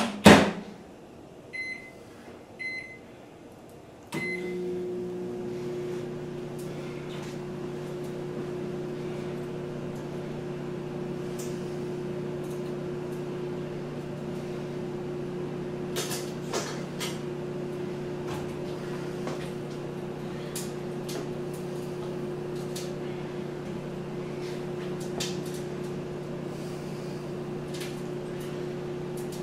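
Countertop microwave oven: the door shuts with a sharp bang, the keypad beeps three times, then the oven starts and runs with a steady hum while heating sauce, with a couple of faint clicks midway.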